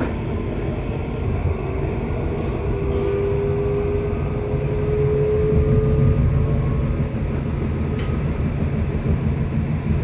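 Subway train running, heard from inside the carriage: a steady low rumble of wheels on rails. A whine sounds for a few seconds about two seconds in, and there is a sharp click near the end.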